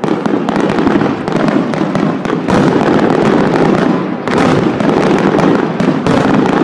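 Fireworks display of large aerial shells bursting in quick succession: a dense, continuous barrage of bangs and crackle, with a fresh surge of bursts about every two seconds.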